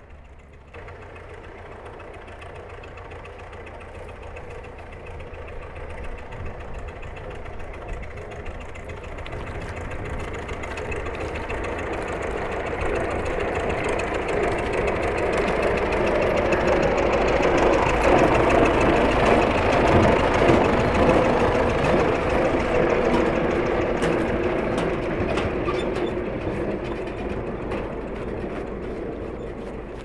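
A motor vehicle's engine approaching along the road, growing steadily louder to a peak about two-thirds of the way through, then fading as it passes and moves away.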